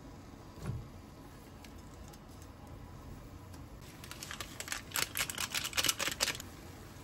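A block of dried instant noodles set down into a small pot of water with one dull knock, then a foil seasoning sachet crinkling and being shaken out over the noodles: a rapid run of crinkles for about two seconds near the end.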